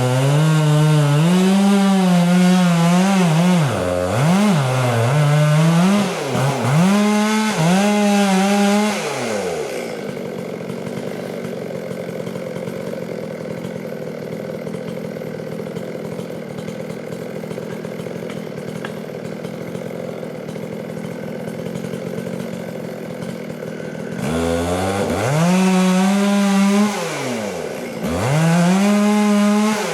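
Two-stroke chainsaw running at high revs, with the throttle let off and opened again several times over the first nine seconds. It then drops to a steady idle for about fifteen seconds and is revved hard twice more near the end.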